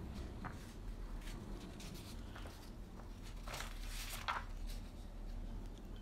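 Quiet room tone with a low steady hum and a few faint, soft rustles, the clearest about three and a half to four seconds in.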